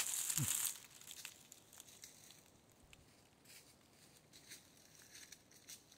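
A brief loud rush of noise at the start, then faint scattered rustling and crackling of dry leaves and twigs underfoot.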